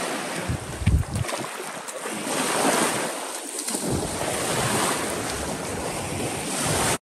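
Small lake waves washing onto a sandy shore, with wind buffeting the microphone in gusts. The sound cuts off abruptly near the end.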